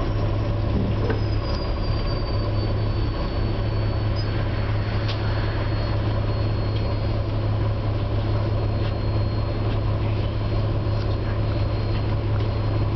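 Cabin sound of a NABI 416 diesel transit bus under way: a steady low engine drone and road rumble, with a thin, high-pitched whistle from the rear of the bus that slides down slightly in pitch in the first couple of seconds and then holds steady.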